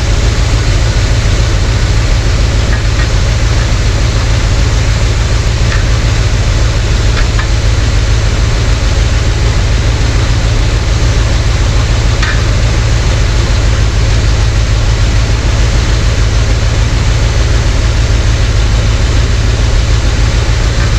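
1971 Corvette's V8 engine idling steadily, freshly timed, with a few light metallic clinks over it.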